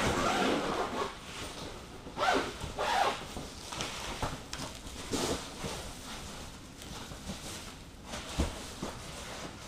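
Zipper and the stiff rustle of a foil-lined insulated bed cover being opened and folded back, in short noisy bursts, with a dull thump near the end.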